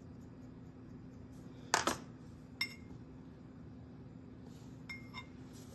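Pottery hand tools clinking and clacking as they are picked up and set down: a sharp clack about two seconds in, then a lighter clink with a short ringing tone, and a couple of small clicks near the end, over a faint steady hum.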